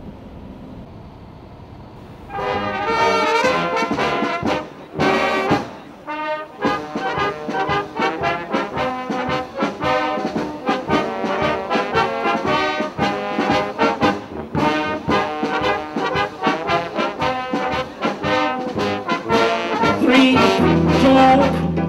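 A Tyrolean wind band of brass and clarinets playing, starting about two seconds in; before that, low car cabin noise.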